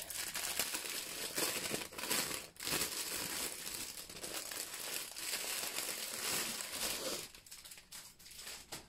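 Clear plastic packaging crinkling and rustling as hands unwrap a bundle of bagged diamond-painting drills. It dies down about seven seconds in.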